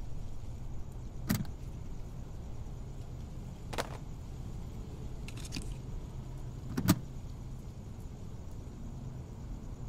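Plastic cassette tapes clacking as they are handled: a few sharp clicks, the loudest about seven seconds in, over a low steady hum.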